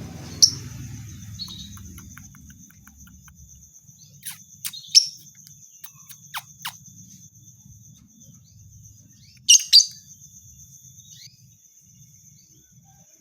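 Lovebird calling in short, shrill chirps that come in scattered clusters, the loudest a pair about nine and a half seconds in, over a steady high-pitched buzz. It is a bait call meant to set other lovebirds chirping in reply.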